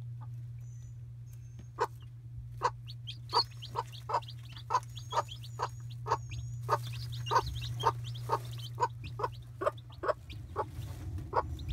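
Broody hen clucking softly and steadily, about three short clucks a second from about two seconds in, while her newly hatched chicks peep high above the clucks. A steady low hum runs underneath.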